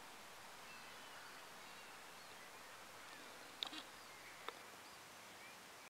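Quiet woodland ambience: a soft steady hiss with faint, distant bird calls, and two short sharp sounds a little after the middle, about a second apart.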